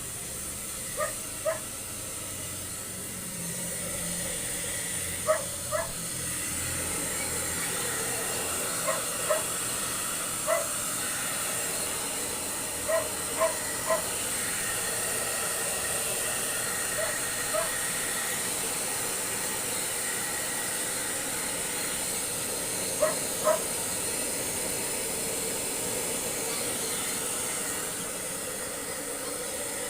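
A husky puppy giving short high whines or yips, mostly in quick pairs, over a steady hiss.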